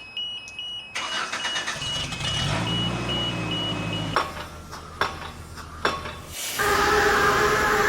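A run of construction machine sounds: an intermittent beeping during the first second, then an engine starting and running from about two seconds in, a few sharp knocks, and a louder steady machine hum from about six and a half seconds in.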